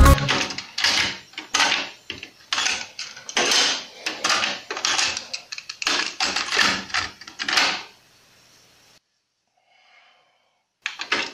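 Hands operating a Sony TC-WR545 cassette deck: a run of short plastic clicks and clunks from its transport buttons and cassette door over about eight seconds, then near silence.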